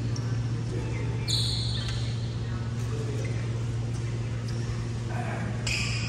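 Badminton rally in a sports hall: rackets striking the shuttlecock with short ticks, and court shoes squeaking on the wooden floor about a second in and again near the end, over a steady low hum.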